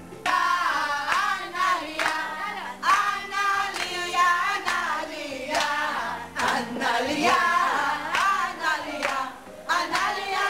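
A group of women singing together and clapping their hands in rhythm, about two claps a second.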